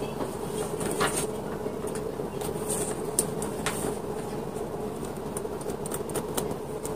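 Scattered light clicks and taps of clear acrylic hamster-cage pieces being handled and fitted together, over a steady background hum.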